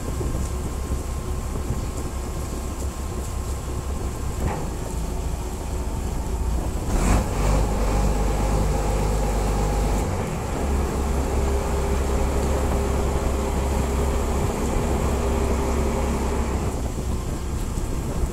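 Boat engine running steadily at sea, a low drone with a few steady humming tones over it and a brief louder rush about seven seconds in.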